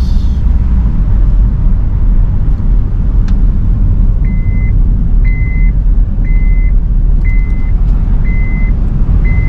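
Loud low rumble of a car on the move. From about four seconds in, a high electronic warning beep sounds about once a second, six times.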